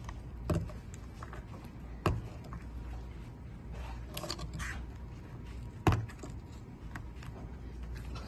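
Oyster shucking knife prying into a clustered oyster shell: four sharp clicks and scrapes of steel on shell, the loudest near the end, over a steady low hum.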